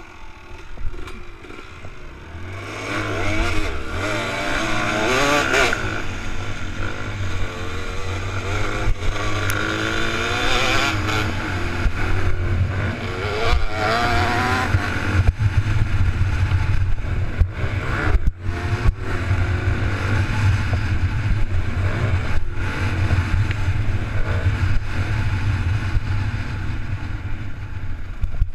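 Honda motocross bike engine revving hard on the throttle, its pitch climbing and falling again and again through the gears, starting up loud about three seconds in and cutting out for a moment about two-thirds of the way through.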